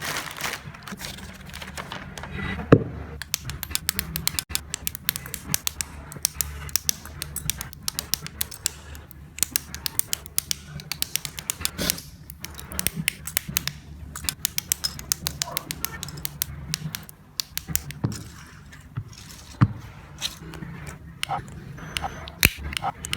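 Quick, irregular clicks and snaps of plastic model kit parts being cut from the runners and pressed together, over a low steady hum.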